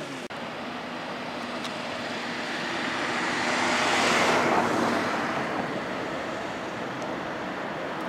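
A road vehicle passing by, rising to its loudest about four seconds in and then fading, over steady traffic noise.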